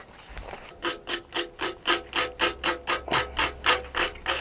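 Sandpaper rubbed back and forth by hand over a sharp edge at the rear of a motorcycle frame, smoothing it down, in even rasping strokes about four a second that start about a second in.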